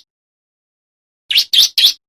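Male bar-winged prinia (ciblek) singing. After a pause, about two-thirds of the way in, it gives three short rising notes in quick succession.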